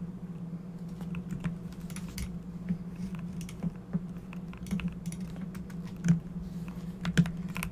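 Typing on a Corsair computer keyboard: irregular key clicks at an uneven typing pace, over a steady low hum.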